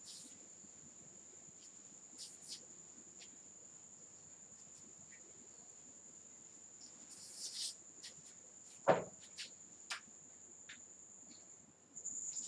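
A faint steady high-pitched whine runs throughout, with soft scrapes and taps of a duster wiping a whiteboard and a single sharp knock about nine seconds in.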